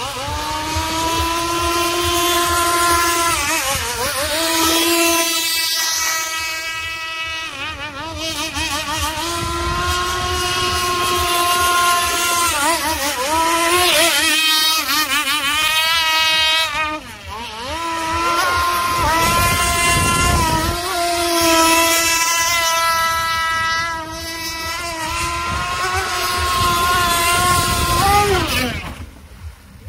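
Full-modified Zenoah 32cc two-stroke gasoline engine of an RC model speedboat running at high revs. Its whine rises and falls several times as the throttle is opened and eased, and it drops away sharply near the end.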